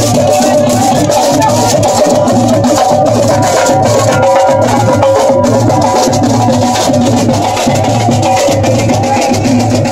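School marching band playing: drums keep a steady marching beat with sharp percussion hits, under a melody of pitched instruments.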